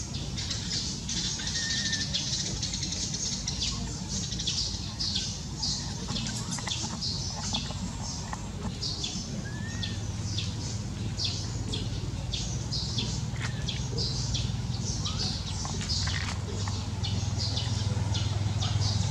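Many small birds chirping rapidly and continuously, over a steady low rumble that grows stronger about halfway through.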